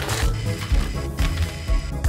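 Background music with a heavy bass beat.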